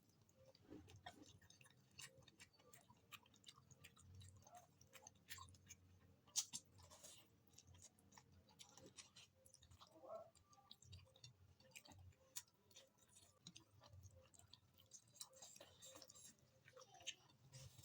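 Faint chewing and mouth sounds of a person eating, with many small scattered clicks.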